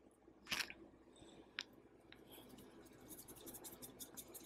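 Hands scooping and pressing a chicken piece into a bowl of seasoned flour: faint dry scratching and rustling. There is one louder brush about half a second in, and quick scratchy strokes through the second half.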